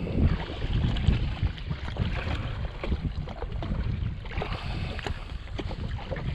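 Wind buffeting the microphone as a steady low rumble, with small scattered knocks and water sounds around a jet ski drifting at sea.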